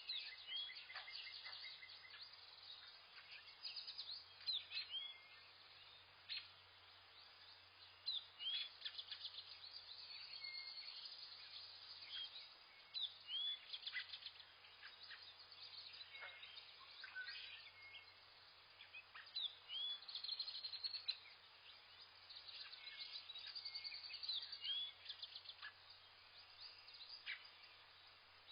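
Several songbirds calling at once: short chirps, quick trills and rising or falling whistled notes, coming in bunches every few seconds over a faint low background hum.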